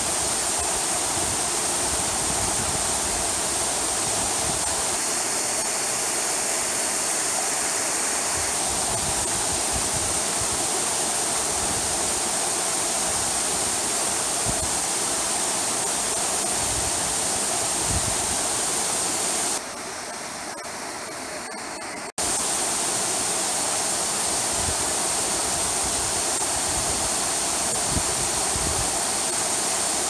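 Waterfall pouring over a rock ledge into a pool, a steady rush of falling water. About two-thirds of the way in it turns quieter and duller for about two seconds, then cuts back in at full level.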